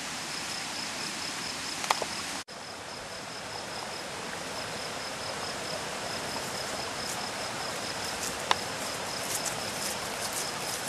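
Outdoor ambience of a steady hiss with a fast, even, high-pitched chirping like a cricket. The sound drops out for an instant about two and a half seconds in, and light high clicks gather near the end.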